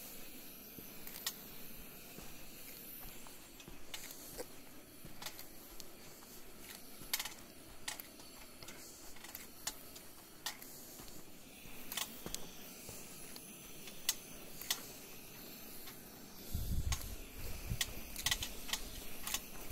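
Footsteps crunching on a gritty marl cave floor: short sharp crunches roughly once a second over a steady hiss. A low rumble joins in near the end.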